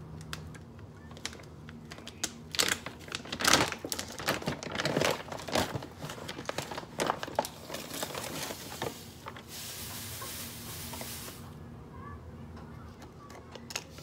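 Large plastic bag of citric acid crinkling and rustling as it is handled and a scoop is dug into it. About two thirds of the way through there is a steady hiss lasting about two seconds.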